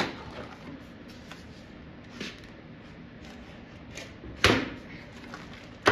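Dull utility knife scoring a plexiglass sheet on a workbench: several short, sharp scraping strokes and knocks, the loudest about four and a half seconds in. The blade is too dull to cut well.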